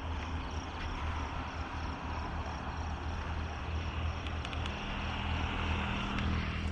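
Steady low rumbling noise of an outdoor night scene, with a faint high chirping that repeats about three times a second.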